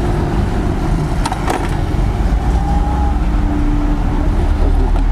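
Motorcycle on the move: engine and road noise under a steady low rumble, with a couple of short clicks about a second and a half in.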